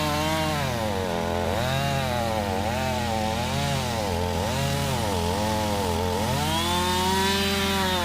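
Small gasoline engine revving up and down over and over, about once a second, over a steady low engine hum.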